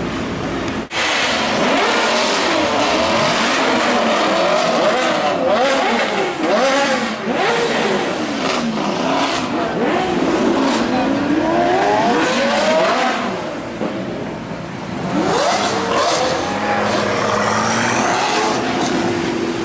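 Sports car engines revving and accelerating past one after another, their notes climbing and dropping repeatedly as they shift gears, with a quieter stretch about two-thirds of the way through.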